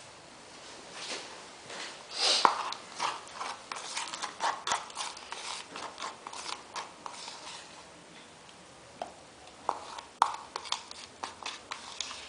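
Irregular clicks, taps and short scrapes of small hard objects being handled, busiest for a few seconds after the start and again near the end.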